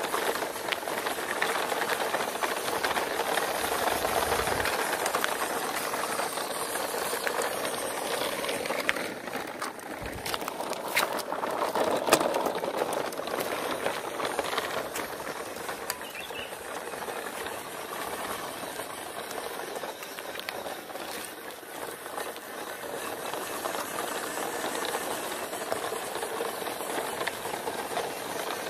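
Plastic toy trucks rolling over rough concrete, towed in a line by a small radio-controlled pickup: a steady rattling hiss from the wheels, with a few sharp clicks around ten to twelve seconds in.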